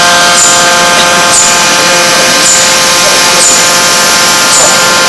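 Forging machine running: a loud, steady mechanical hum with several steady tones, and a short high chirp repeating about once a second.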